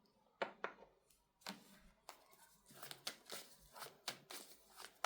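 Tarot cards being handled and laid out: a string of faint, soft card clicks and rustles, about two a second.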